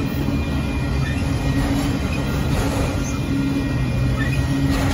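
Freight train of autorack cars rolling past, a steady rumble of steel wheels on the rails.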